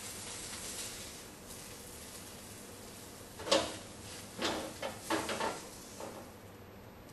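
A spatula scraping under cooked tilapia fillets on a hot non-stick skillet and knocking them into a glass bowl. It comes as a few short scrapes and knocks from about three and a half seconds in, the first the loudest. A faint sizzle from the pan dies away in the first second or so.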